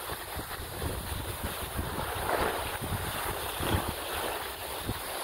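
Wind rushing over the microphone of a moving skier, with the hiss and scrape of skis sliding on packed snow, swelling about two seconds in and again near four seconds.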